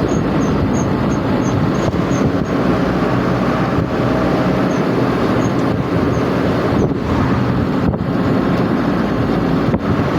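Steady vehicle engine and road noise. A faint, quick, high ticking runs through the first two or three seconds.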